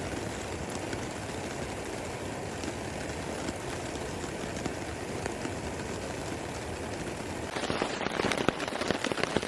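Steady rain, then, about seven and a half seconds in, a sudden change to louder, dense pattering of raindrops hitting a surface close by.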